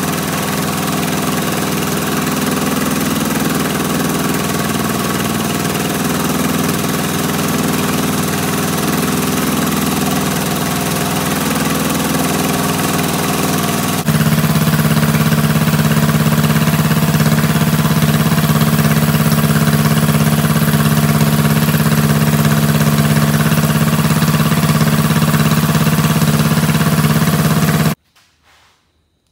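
Predator single-cylinder go-kart engine idling steadily through a new 3-stage header pipe wrapped in a silicone header sock. About halfway through the sound jumps louder with a fuller, lower tone, and it cuts off suddenly near the end.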